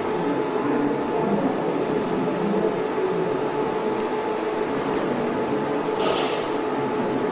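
Steady machine hum with a constant pitched drone, and a brief hiss about six seconds in.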